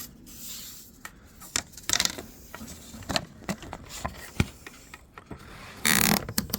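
Wooden screen door and a yardstick being handled: scattered light knocks and clicks, then a louder scraping noise about six seconds in.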